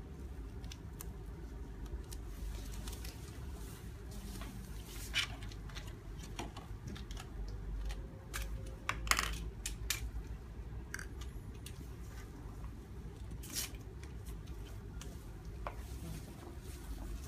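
Scattered small clicks and clinks of small objects being handled, the loudest a little past halfway, over a steady low room hum.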